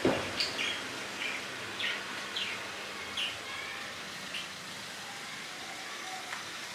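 A small bird chirping: a string of short, falling chirps, irregularly spaced, over the first four seconds or so, over a steady low background hum. A sharp knock right at the start.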